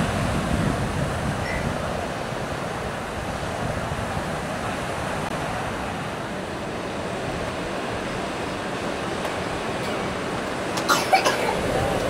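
Sea surf breaking and washing up a sandy beach, a steady rush that is heavier at the start. A few short sharp sounds come near the end.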